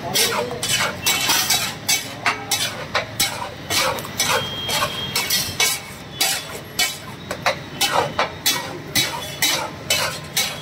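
A flat metal spatula scraping and clacking against a large iron tawa as thick pav bhaji is spread and mixed on it, in quick, uneven strokes about two or three a second.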